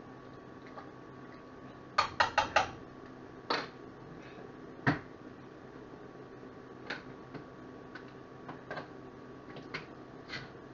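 A utensil knocks against a stainless steel cooking pot while chili is mixed: four quick knocks about two seconds in, two more single knocks, then lighter scattered clicks.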